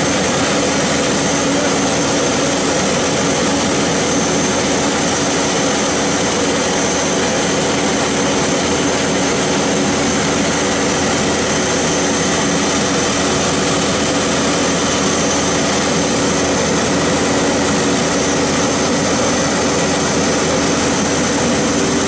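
A 4YL-5 combine harvester running steadily while its unloading auger pours grain into a trailer. A constant machine noise with a steady high whine over it.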